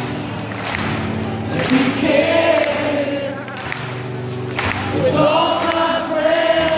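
Live rock band playing, with acoustic and electric guitars under a male lead vocal. Two sung phrases come about two and five seconds in, each ending on a long held note.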